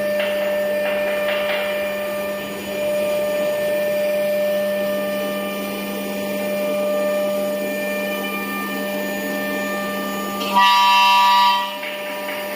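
Aluminium profile CNC drilling and milling machine running: a steady machine whine made of several held tones. Near the end a louder, higher tone sounds for about a second, then stops.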